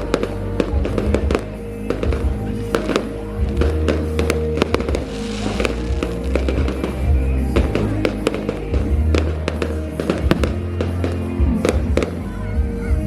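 Fireworks bursting in quick succession, many sharp bangs and crackles, over loud music with a heavy bass line. About five seconds in, a brief hissing crackle rises above the bangs.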